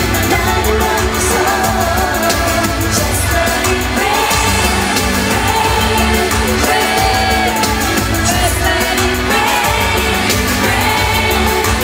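A woman singing a pop song live into a handheld microphone over a backing track with a steady heavy bass, heard through a concert sound system.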